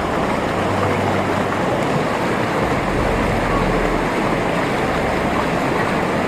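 Steady rushing of whitewater in a river rapid.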